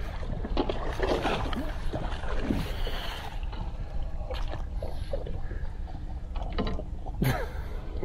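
A hooked walleye thrashing and splashing at the water's surface as it is scooped into a landing net, busiest in the first few seconds. Sparser knocks follow, over a steady low rumble.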